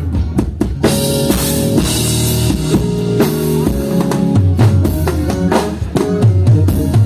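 A rock band playing live at a sound check: a drum kit with bass drum and snare hits driving a steady beat over held bass and guitar notes.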